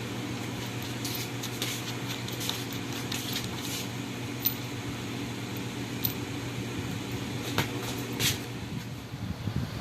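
Steady hum of an electric fan, with scattered light clicks and rubbing from small handling noises and a few sharper ticks spread through the middle and near the end.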